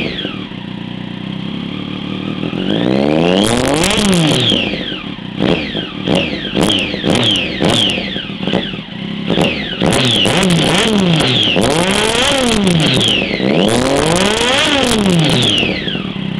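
2008 Triumph Daytona 675's three-cylinder engine through a Two Brothers M5 exhaust with no catalytic converter, EXUP valve or O2 sensor, revved while standing at idle. A single rev comes a few seconds in, then a quick run of short throttle blips, then several longer revs rising and falling, dropping back to a steady idle between them.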